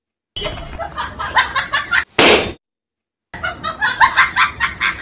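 A single loud, sharp bang of a popping balloon about two seconds in, set between two stretches of choppy, laugh-like comic sound, with a brief dead silence before the second stretch.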